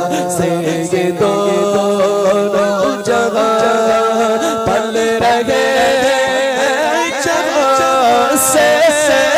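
A man singing an Urdu manqabat, a devotional song, into a handheld microphone, drawing out long wavering melismatic notes.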